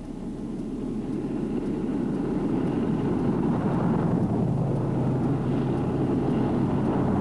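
A car approaching on the road, its engine and tyre noise growing steadily louder, with a low engine hum coming up over the last few seconds.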